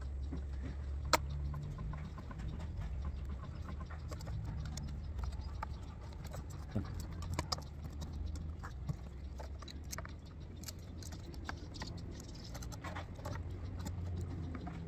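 Small irregular metallic clicks and taps of a bolt, washer and nut being fitted by hand to a solar panel's aluminium frame and steel mounting bracket, with one sharper click about a second in, over a low steady rumble.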